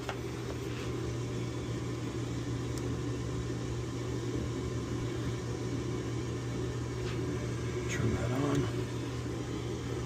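Rheem gas furnace running with a steady low mechanical hum, before its gas valve opens.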